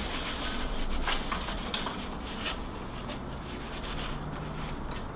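Irregular rubbing and scraping as computer parts are handled and rubbed by hand, busiest in the first couple of seconds and lighter after.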